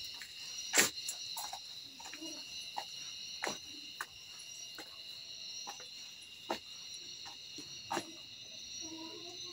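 Steady high-pitched chirring of crickets in the background, with several sharp knocks and clicks, the loudest about a second in.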